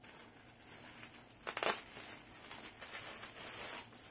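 Clear plastic packaging bag crinkling as a stack of folded T-shirts is pulled out of it, with a louder crackle about one and a half seconds in.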